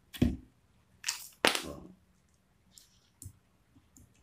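Hand rivet gun working a steel pop rivet set into hardwood: a few sharp metal clacks as the handles are squeezed and the jaws grip the mandrel, the loudest about a second and a half in, then fainter clicks.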